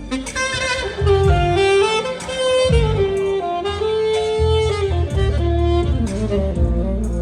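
Saxophone playing a melody of held and gliding notes over a low bass accompaniment.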